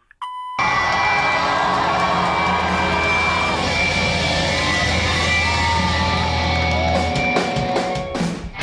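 A short answering-machine beep, then loud rock music with held, distorted guitar tones and gliding guitar notes. Near the end it dips briefly and swells back up.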